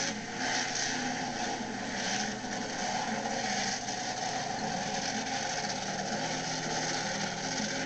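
Bearfoot monster truck's engine running fairly steadily as the truck drives slowly around the dirt course.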